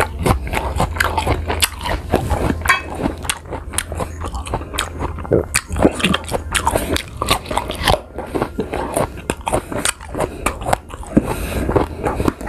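Close-up crunching and chewing of firm green guava slices, with irregular crisp crunches throughout, over a low steady hum.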